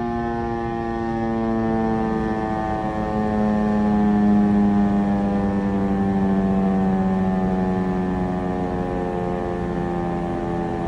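Federal Signal Eclipse 8 tornado siren sounding one loud, steady tone that slowly falls in pitch as it winds down, swelling louder about four seconds in.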